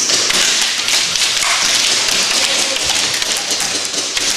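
Airsoft guns firing and BBs striking the OSB walls: a dense, rapid run of sharp taps and clicks with an occasional thud.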